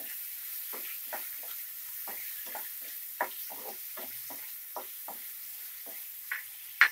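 Tiger prawns and chopped onion sizzling in hot oil in a pan while a wooden spatula stirs them: a steady frying hiss with irregular scrapes and taps of the spatula against the pan, and a sharper knock near the end.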